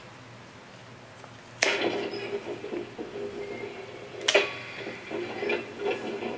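Two sharp clicks, the first about a second and a half in and the second near four seconds, each followed by a low, uneven rattling clatter from a TOMYTEC 101 series cab-style N-scale sound control panel.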